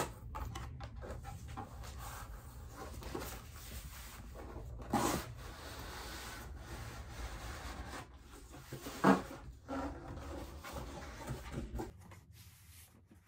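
Cardboard boxes being handled: flaps folded open and an inner box slid out, cardboard scraping and rubbing throughout, with a knock about five seconds in and another about nine seconds in.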